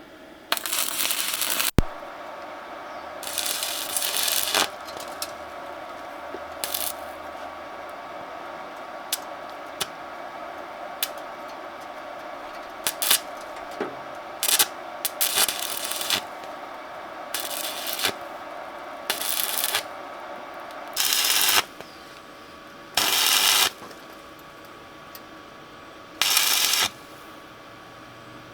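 Metal parts clinking and rattling, broken by about nine short bursts of hissing noise, each half a second to a second long.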